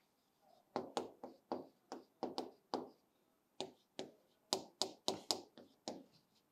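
Marker pen writing on a board: a quick, irregular run of short taps and scratchy strokes as letters are written out, with a brief pause about three seconds in.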